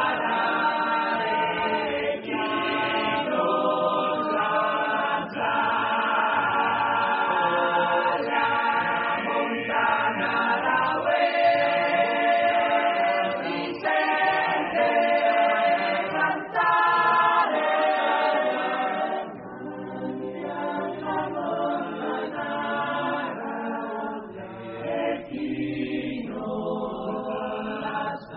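Choir singing a slow song in long held chords, softer from about two-thirds of the way through.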